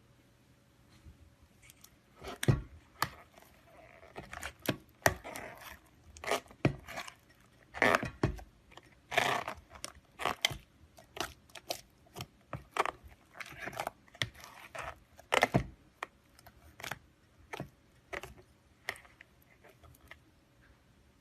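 Slime being worked by hand, giving irregular crackling and popping clicks that come thick in the middle and thin out towards the end.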